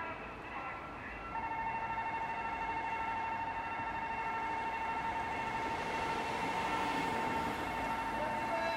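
Railroad crossing warning signal sounding: a steady electronic tone set comes in louder about a second and a half in and holds.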